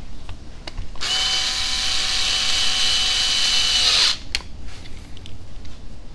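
Power screwdriver running for about three seconds as it drives a screw fastening the battery tray and flat centre skid to an RC crawler chassis, its pitch dropping as it stops. A few light clicks of parts and tools are heard around it.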